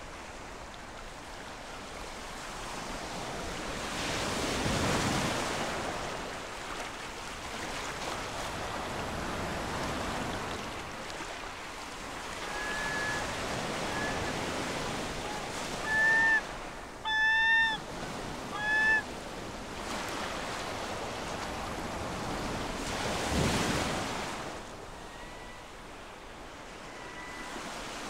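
Lake waves washing on a shore, with surges about 5 s in and again near the end. Midway, a flock of geese honks a string of short calls, the loudest few close together in the middle of the string.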